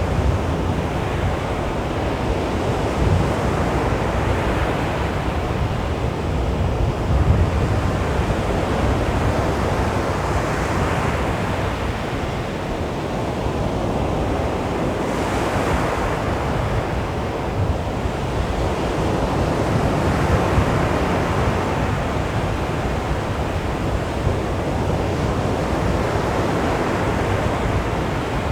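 Small sea waves breaking and washing onto a beach, a continuous surf wash that swells every few seconds, with low wind rumble on the microphone.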